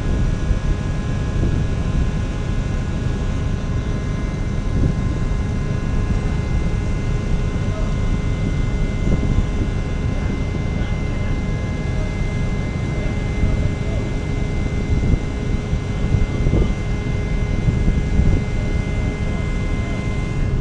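Steady drone of heavy offshore machinery: a low rumble with several constant whining tones held over it throughout.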